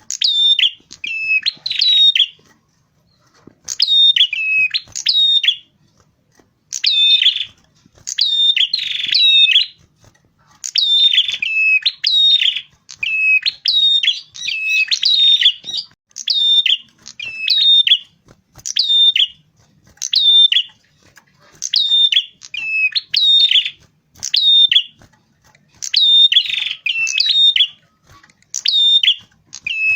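Prenjak kepala merah, a small red-headed warbler, calling in a loud lure recording: short, high chirping phrases repeated in quick runs of two or three, with brief gaps between runs.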